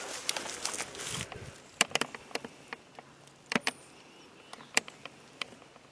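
Rustling, then a scattered string of sharp metallic clicks and taps: a firearm and its cartridges being handled while getting ready to shoot. The loudest click comes about two seconds in.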